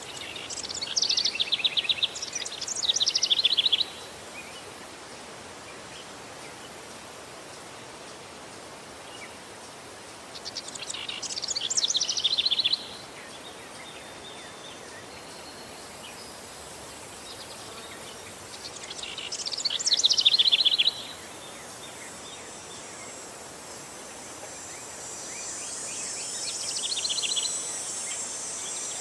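Outdoor nature ambience: a songbird sings four times, each song a quick run of rapid notes that falls in pitch, about eight seconds apart, over a steady background hiss. Near the end a high insect buzz comes in.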